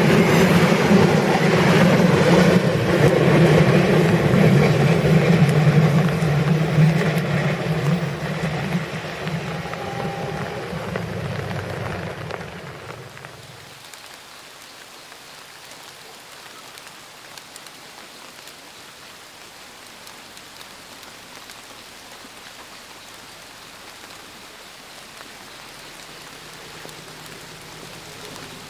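Passenger train coaches passing close on a curved track, wheels clattering on the rails, dying away about thirteen seconds in. Then steady heavy rain, with a faint low hum creeping in near the end as a train approaches in the distance.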